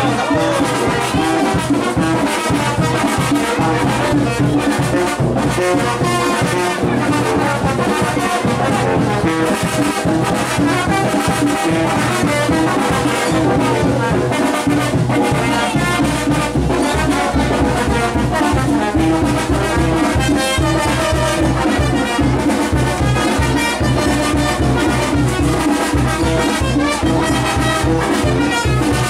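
Brass band music, with trumpets and trombones playing over a steady, driving bass beat, for people dancing.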